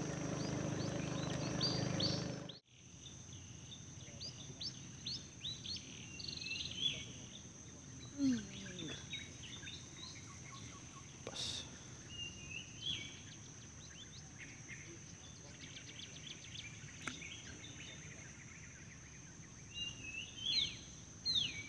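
Birds chirping and calling, many short sweeping notes over and over, with a steady high-pitched tone underneath. A louder low hum cuts off abruptly about two and a half seconds in.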